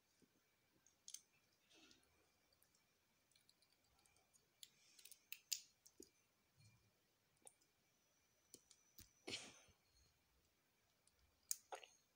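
Faint, scattered clicks and taps of plastic Lego bricks being handled and pressed together, with a few sharper snaps near the middle and again near the end.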